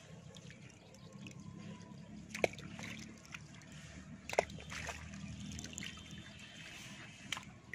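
Water trickling and sloshing as a fine-mesh fishing net is gathered by hand in shallow water, with three sharp clicks, the loudest about two and a half and four and a half seconds in.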